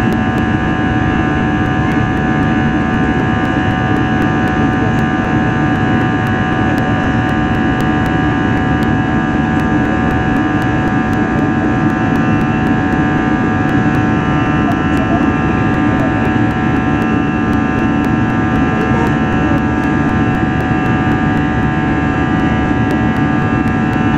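Airbus A320 cabin noise from a seat beside the wing during the climb after takeoff: the jet engines' steady loud drone with a low hum and several constant whining tones above it.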